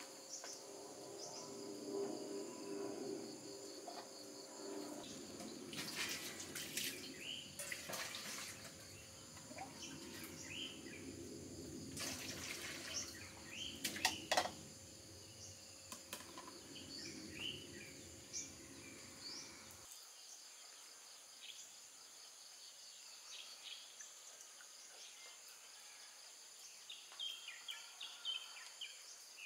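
Water running and splashing into steel basins as vegetables are washed, with occasional clatter of the metal bowls; the water stops abruptly about two thirds of the way through. Birds chirp over a steady high insect buzz throughout.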